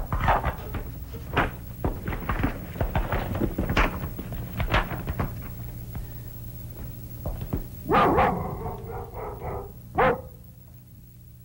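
A dog barking: a run of short, irregular barks, then two louder barks about eight and ten seconds in.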